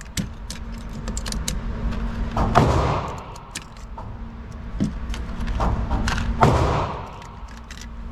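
Steady low hum of a vehicle in motion heard from inside the cabin, with light rattling clicks and a broad swell of noise about every four seconds.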